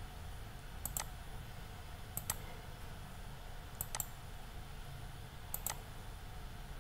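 Computer mouse clicking, four quick pairs of clicks about a second and a half apart, over a faint low hum.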